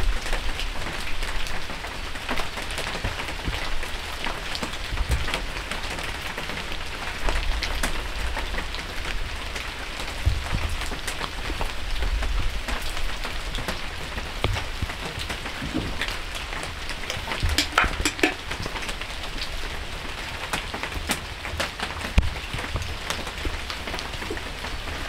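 Steady rain falling, with many individual drops ticking on nearby surfaces, and a few brief low rumbles.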